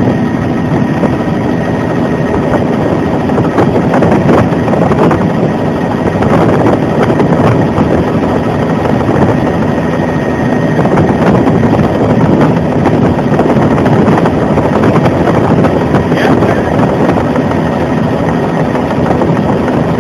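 Bell 206 JetRanger helicopter in flight, its turbine engine and main rotor heard from inside the cabin as a loud, steady noise.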